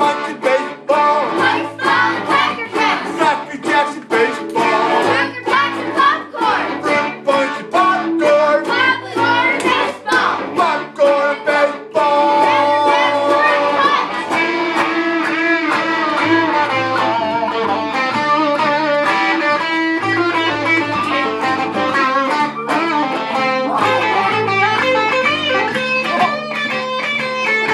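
Guitar-led music, choppy and stop-start for about the first twelve seconds, then smoother with held notes.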